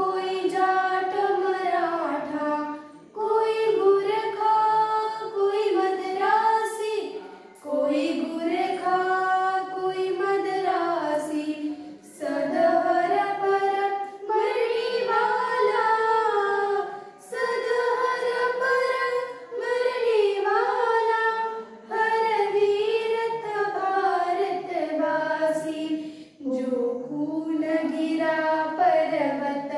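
Young girls' voices singing a patriotic song unaccompanied, in held melodic phrases of about four to five seconds with short breaks for breath between them.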